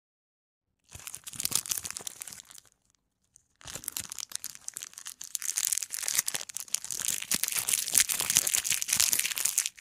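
Crinkling, rustling handling noise as wired earphones and their plastic packaging are handled, full of small crackles. It comes in two stretches: a short one starting about a second in, then a longer one from about three and a half seconds on.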